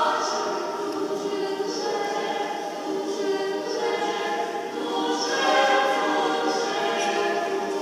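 Church choir singing a Christmas carol a cappella, the voices sounding in a church.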